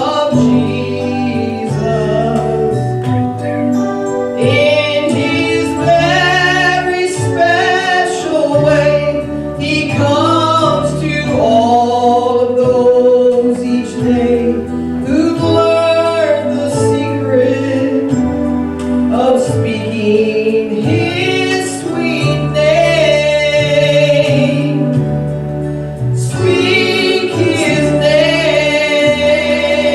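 A woman singing a gospel song over instrumental accompaniment with sustained bass notes.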